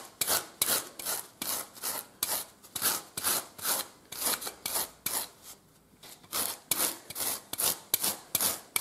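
A large rasp drawn in quick repeated strokes across the block of a saddle knee roll, shaving it to shape: a scratchy rasping about two to three strokes a second, with a short pause a little past halfway.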